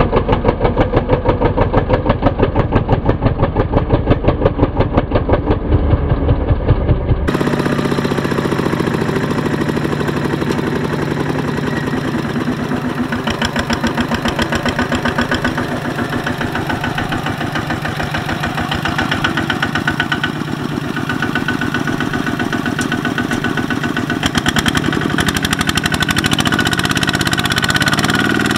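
Two-wheel walking tractor's single-cylinder diesel engine running under load while hauling a loaded trailer, a fast, even beat of firing pulses. The sound changes abruptly about seven seconds in, then the engine beat carries on.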